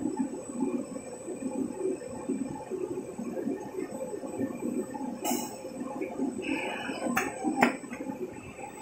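IECHO TK3S digital cutter with its router module running: a busy low mechanical rumble under a steady hum and a thin high whine. Sharp mechanical clicks come about five seconds in and twice more near the end as the tool rack moves beneath the router head.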